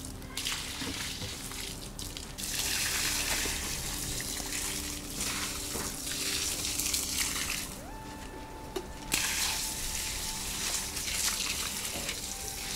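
Water being poured out onto dry soil, a steady splashing hiss in long pours with brief breaks about two seconds in and again around eight seconds in.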